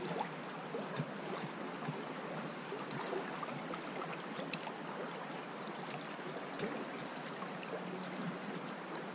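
Small river's current running steadily over a shallow riffle, with scattered faint ticks.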